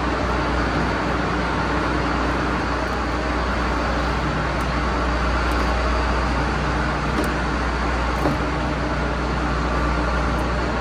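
A steady mechanical drone with a strong low hum, like an engine or machine running.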